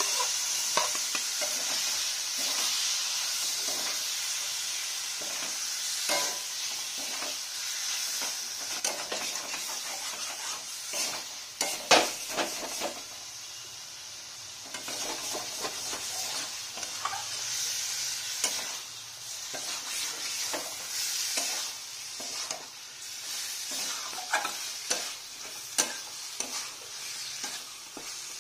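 Mutton pieces and fat sizzling in hot fried spice paste in a metal kadai, stirred and scraped with a metal spatula. The sizzle jumps up at the start and runs steadily under irregular scraping strokes, with one sharp clank of spatula on pan about twelve seconds in.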